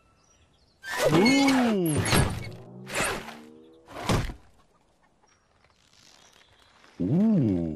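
Animated cartoon soundtrack: a character's cry that rises and falls in pitch, then three sharp thuds about a second apart, and a second similar rising-and-falling cry near the end.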